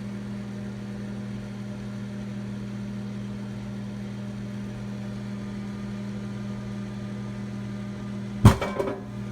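Microwave oven running with a steady hum, then a whole egg exploding inside it with one sudden loud bang about eight and a half seconds in, followed by a few smaller knocks.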